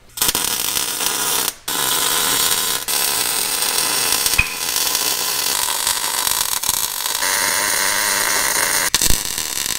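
MIG welding arc in short-circuit transfer mode, a steady crackling hiss, with a short stop about a second and a half in.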